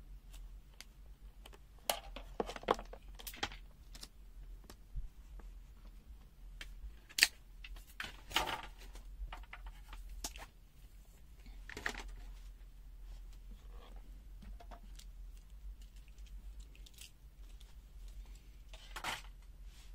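Handling noise from multimeters and their test leads being moved on a rubber bench mat: scattered clicks and brief rustles, the loudest about seven seconds in, over a steady low hum.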